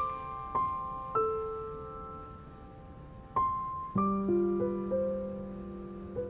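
Slow, sparse solo piano background music: single notes and soft chords struck a few at a time, each ringing on and fading, with a low note entering about four seconds in and held under the rest.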